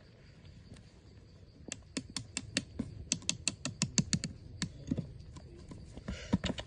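A quick run of about twenty sharp taps or clicks, several a second, beginning a second and a half in and stopping after about three seconds, with a few scattered knocks near the end.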